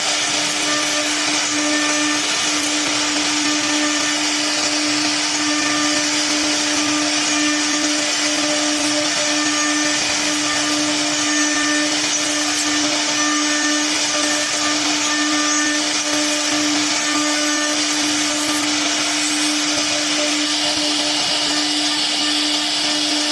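3-axis CNC router running: the spindle holds one steady whine over a constant hiss, the sound of the machine at work on a cabinet door.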